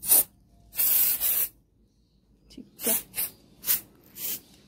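Insect-killer spray against mosquitoes hissing in six separate squirts: a short one, a longer one of under a second, then four short squirts in quick succession.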